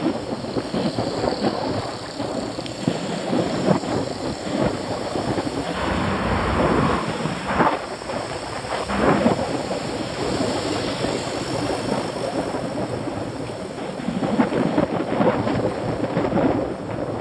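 Wind buffeting the microphone of a camera carried on a moving bicycle: a loud, rough rumbling rush that surges stronger in the middle and again near the end.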